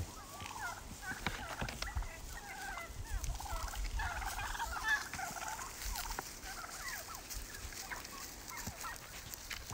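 A flock of young turkeys calling while feeding: many short, overlapping calls, busiest about four to five seconds in.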